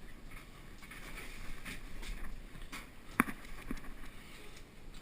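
Muffled handling noise of a tank-type water heater being lifted and tipped by hand: faint scrapes and light knocks, with one sharper knock about three seconds in and a softer one just after. The sound is dulled by a waterproof camera housing.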